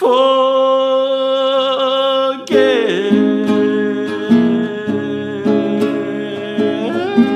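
Music: a man's singing voice holds one long note over acoustic guitar, then slides down about two and a half seconds in. Acoustic guitar strumming carries on after it, with a brief upward vocal slide near the end.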